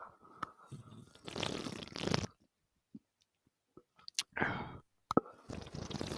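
A person drinking Coca-Cola: gulping and swallowing in three short runs, with a few sharp clicks in between.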